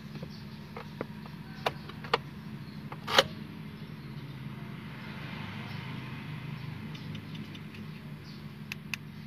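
Sharp clicks and light knocks from a flip key being handled and worked at the ignition, with the loudest click about three seconds in and two more near the end, over a steady low hum.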